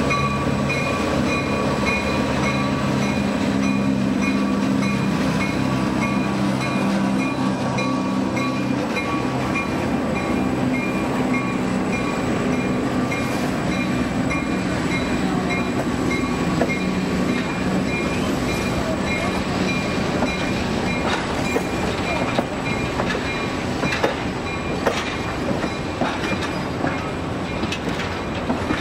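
A diesel-led passenger train passes at close range. The locomotive's engine is loud in the first several seconds, then fades as the passenger cars roll by, their wheels clicking over the rail joints, the clicks most frequent near the end.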